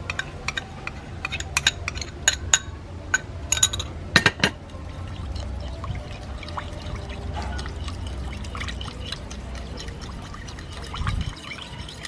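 Dark liquid poured in a thin stream from a small cup into a ceramic bowl, with sharp clicks and clinks of a metal spoon against the bowl over the first few seconds, the loudest about four seconds in. Then the metal spoon stirs the mixture in the bowl.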